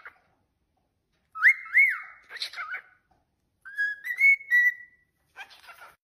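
Cockatiel whistling: two short phrases of clear whistled notes, the first with swooping up-and-down slides, the second with held notes stepping up in pitch, then a brief call near the end.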